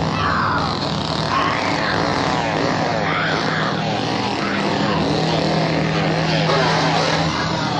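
Two-stroke chainsaw running loudly, its engine note wavering up and down as it is revved.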